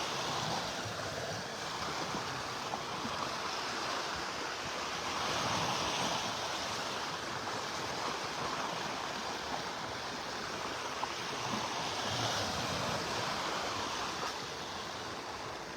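Small Gulf of Mexico waves breaking and washing up the beach: a steady wash of surf that swells every few seconds.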